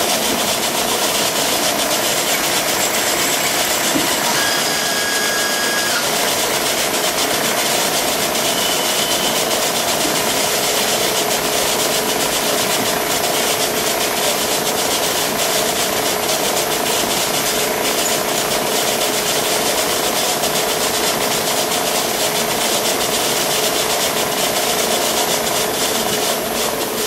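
A machine drill running steadily, its bit cutting into the steel head of a frozen rifle action screw to drill the head off. Brief high squeals come through about four to six seconds in.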